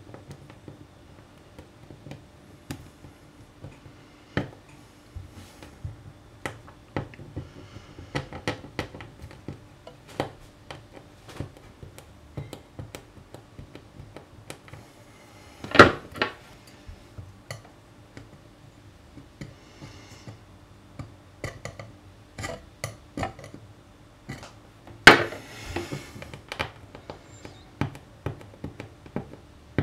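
Fingernails picking and scraping melted plastic off a glass-ceramic hob: irregular small clicks and scratches, with two louder, longer scrapes, one about halfway through and one later on.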